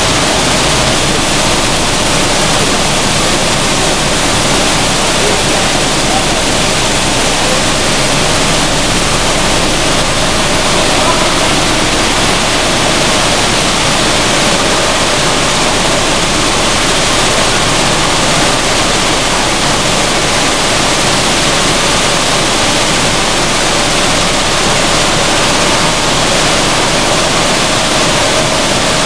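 Sunflower seed dehulling machine running: a loud, steady rushing hiss of seeds and hulls streaming over vibrating trays, with a faint steady tone underneath.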